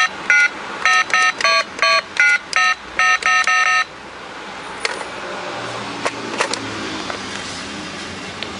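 Bear-shaped educational toy telephone beeping as its number keys are pressed: a quick run of about ten short dialing-style beeps that stops about four seconds in, followed by a few faint clicks.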